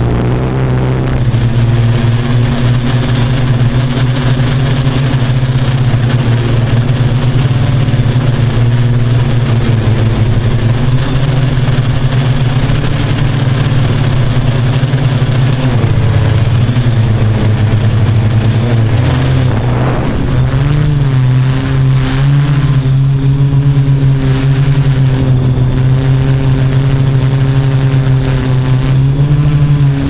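Multirotor drone's motors and propellers humming steadily with a buzz. The pitch wavers and dips just past the middle, then settles a little higher as the drone changes speed.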